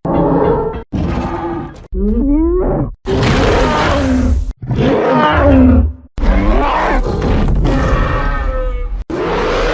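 A rapid string of spliced sound-effect clips of loud roaring, grunting and groaning voices, about six in a row, each cut off abruptly before the next begins.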